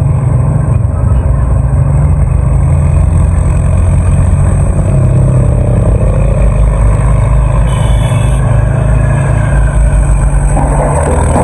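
Excavator's diesel engine running steadily with a low hum, a rougher, noisier sound joining near the end.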